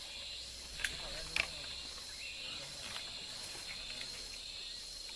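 A steady high-pitched insect chorus over faint outdoor background noise, with two short sharp clicks about a second in.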